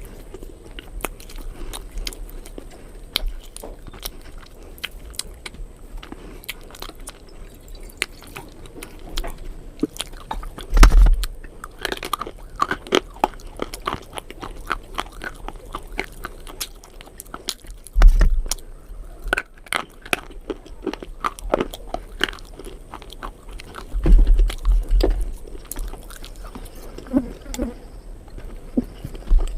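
A person biting and chewing something crunchy close to the microphone, with many short sharp crunches and clicks. There are a few loud dull thumps about 11, 18 and 24 seconds in.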